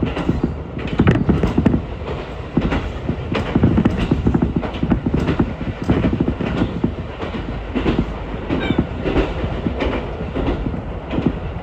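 Ichibata Electric Railway train running along the line, heard from inside the car: a constant low rumble with uneven clattering knocks as the wheels pass over the rail joints.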